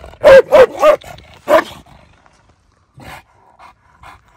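Large shepherd dog barking: four deep, loud barks in quick succession in the first couple of seconds, then it falls quiet.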